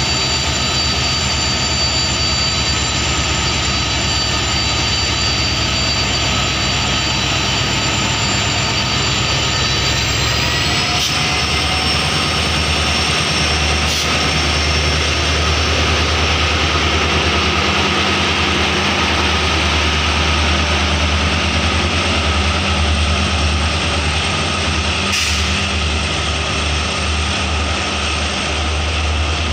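EMD WDP-4D diesel-electric locomotive's turbocharged two-stroke 16-cylinder engine under load as it accelerates, with a loud jet-like turbocharger whine. About ten seconds in, the whine and the engine note step up in pitch as the locomotive is notched up.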